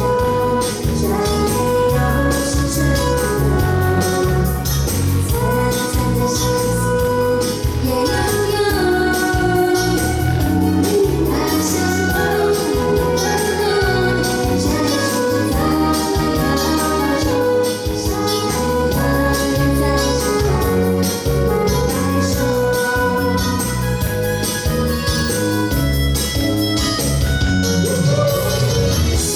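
Music plays throughout: a song with a steady beat under a melody of held notes.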